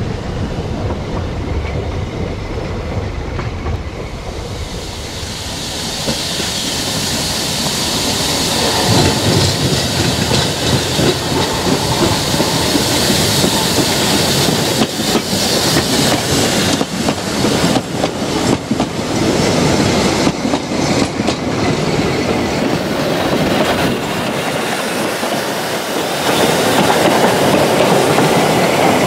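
Narrow-gauge steam locomotive Palmerston and its carriages running past. Wheels click over the rail joints, with a run of clicks in the middle, and steam hisses.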